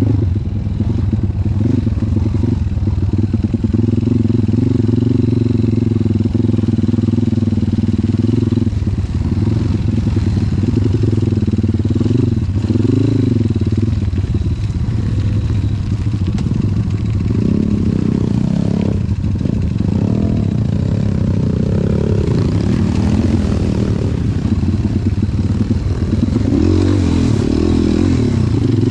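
Off-road trail motorcycle engine running at low to moderate revs, its pitch rising and falling with the throttle, with some clatter.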